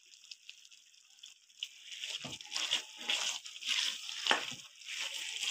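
A spatula stirring and scraping thick semolina halwa in a metal pan on low heat, with a wet sizzle. It starts about a second and a half in and goes in uneven strokes.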